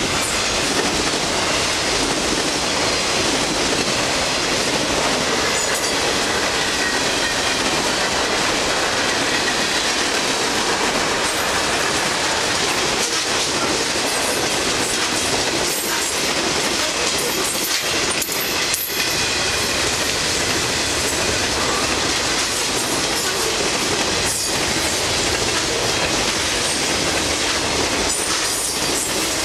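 Long container and mixed freight train rolling steadily past, its steel wheels clicking over the rail joints.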